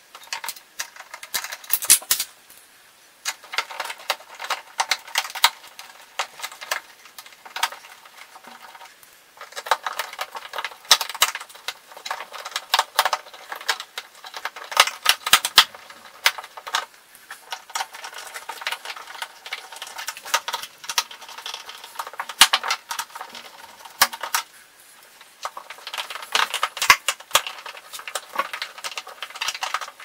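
Hand screwdriver turning the screws that fix a new evaporator cover to the back wall of a fridge, giving rapid clicking and rattling in bursts with short pauses.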